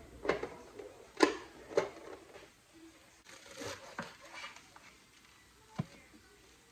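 Plastic vegetable chopper being handled as its slicer insert is fitted: a few sharp plastic clicks and knocks, the loudest about a second in, with another single click near the end.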